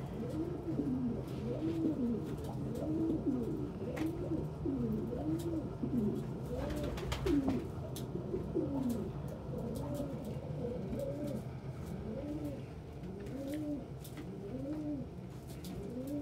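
Several domestic pigeons cooing, overlapping low rising-and-falling coos repeating throughout.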